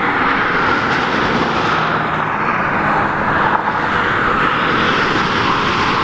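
Steady rush of highway traffic passing close by, tyre and engine noise on the interstate.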